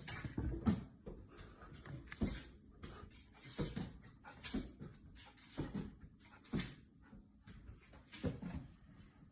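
Faint, irregular soft knocks and rustles, roughly one every half second to a second, the loudest in the first couple of seconds.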